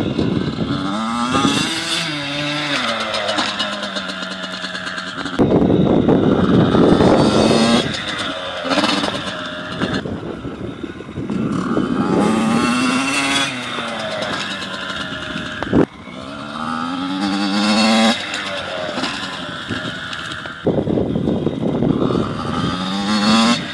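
Small dirt bike engine revving up and dropping back repeatedly as it is ridden, its pitch climbing in several separate runs. Bouts of loud rushing noise come and go over it, and there is one sharp click about two-thirds of the way through.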